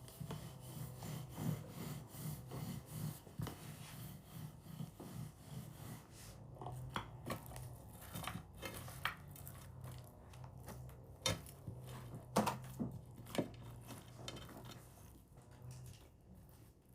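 Irregular light knocks and clicks of food preparation, with a few sharper cracks in the middle, over a faint steady low hum.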